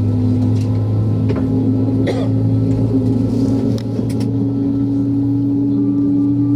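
Airbus A320 cabin noise before takeoff: a steady low hum with a second tone that rises slowly in pitch, and a few light clicks.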